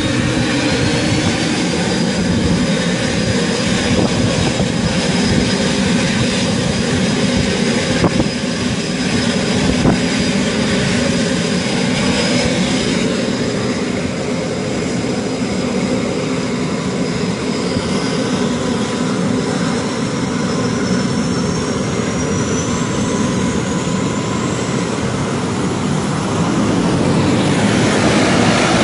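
Twin turboprop transport plane's engines running on the ground: a steady low rumble under a high turbine whine. The whine rises in pitch at the start and again about two thirds of the way through, and the sound gets louder near the end.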